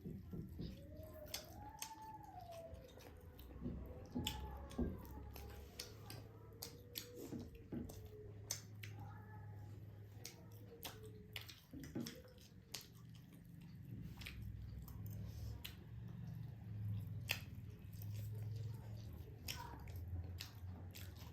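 Close-up eating sounds of ramen noodles: chewing with many small wet mouth clicks. Faint wavering tones sound in the background during the first half.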